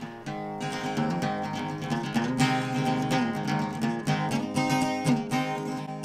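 Background music: strummed acoustic guitar playing steady chords.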